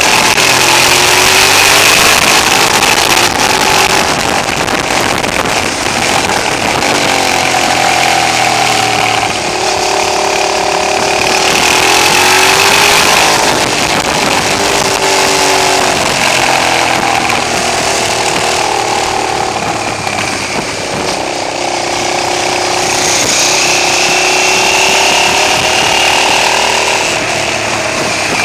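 Twin-cylinder motorcycle engine heard from the riding bike itself, its pitch rising and falling again and again as the throttle opens and closes through the bends, with wind rushing over the microphone. The recording is distorted because the camera's input level was set a little too high.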